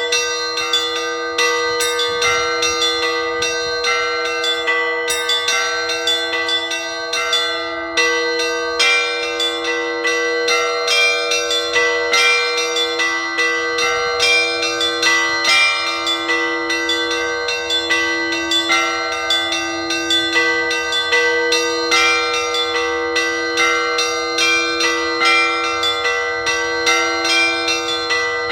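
Orthodox church bells rung together in a continuous peal. Several smaller bells are struck in quick, dense patterns over a lower bell that is struck about once a second, with the strikes overlapping and ringing on.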